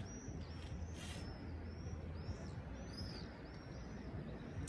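Birds calling, a run of short high chirps about two to three a second, over the steady low hum of city traffic. A brief hiss comes about a second in.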